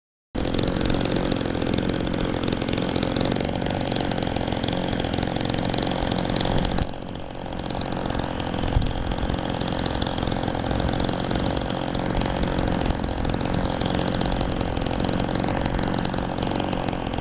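A model airplane's 26cc engine, converted to run on nitro fuel, running steadily at high speed in flight, with a brief dip in loudness about seven seconds in.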